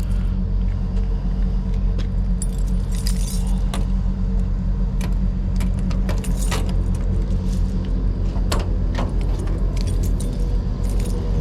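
An engine running steadily at idle, with repeated metallic clinks and jangling over it.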